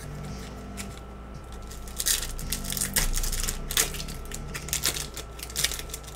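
Foil wrapper of a Panini Select football card pack crinkling and tearing as it is crumpled and ripped open by hand, a quick run of sharp crackles starting about two seconds in and going on for several seconds.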